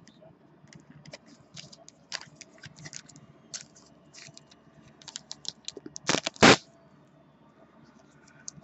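Baseball cards being handled and sorted by hand, with light clicks and scraping of card stock. About six seconds in, two much louder brief scuffs, a handling noise.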